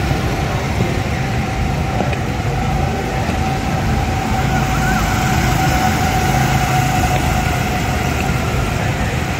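Go-kart engines, 9 hp four-stroke Honda motors, running together in a steady drone as a group of karts drives past.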